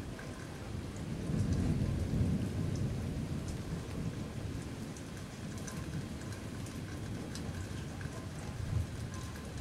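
Steady rain with a low roll of thunder that builds about a second in and slowly fades, and a smaller rumble near the end.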